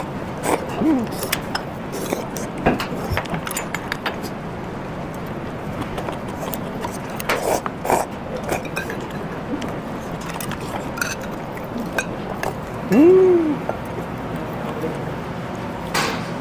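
Spoons and chopsticks clinking against bowls and a pot while eating stew, with scattered sharp clinks over a steady background. A short rising-and-falling voice sound comes about 13 seconds in.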